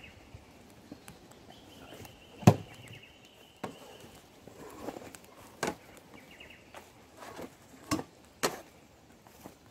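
A handful of scattered knocks and thuds at uneven intervals, the loudest about two and a half seconds in.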